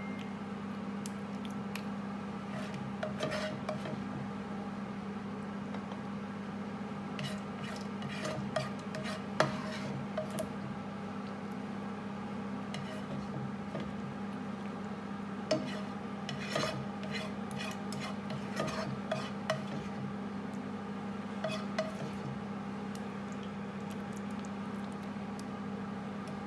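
A cooking utensil scraping and tapping against a frying pan in scattered bursts as leftover meat sauce is scooped out of it, with a steady low hum underneath. The loudest knock comes about nine seconds in.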